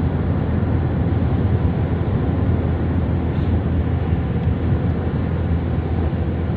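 Steady low rumble of road and wind noise from a vehicle travelling at motorway speed.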